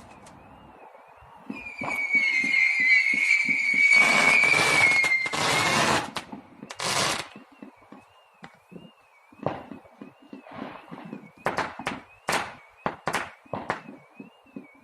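Fireworks going off: a high whistle from a rocket starts about a second and a half in over rapid crackling, followed by loud bangs between about four and seven seconds. Scattered sharp firecracker cracks follow, with a faint tone warbling steadily up and down beneath them.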